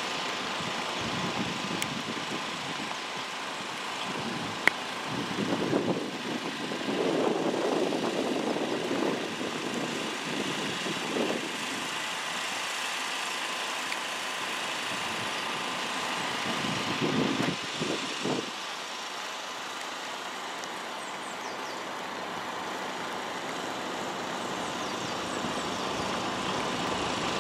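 Steady background hum of distant engines running, with a few louder stretches of muffled noise and one sharp click about five seconds in.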